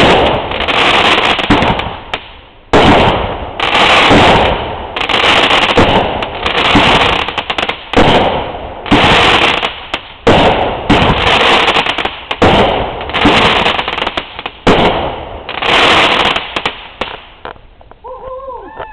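Fireworks going off in quick succession: loud bangs about once a second, each followed by dense crackling. They stop about a second before the end.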